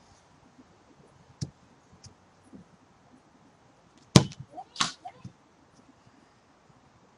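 A football being kicked: a sharp thud about four seconds in, the loudest sound, followed about half a second later by a second impact and a smaller one after it. A single shorter knock comes about a second and a half in.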